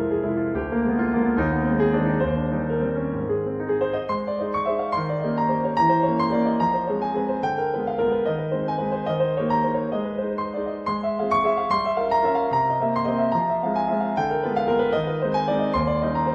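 Background music: a gentle piano melody with held notes.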